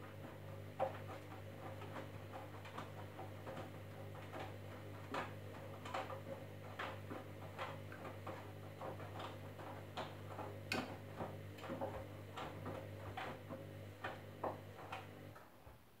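Candy front-loading washing machine tumbling its load during a wash: a steady motor hum under irregular clicks and taps as the wet load turns in the drum. The motor stops about half a second before the end as the drum pauses.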